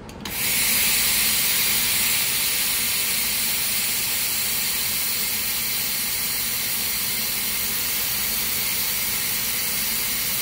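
Compressed air hissing steadily out of the Eastwood Versa-Cut 60 plasma cutter's torch nozzle in test mode, blowing through the air-flow tester while the air pressure is set before cutting. The hiss starts just after the beginning.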